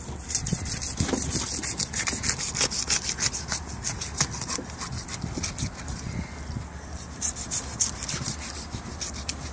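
A knife sawing through a striped bass's neck bone to take the head off: a rapid run of short rasping strokes. The neck bone is brutal going.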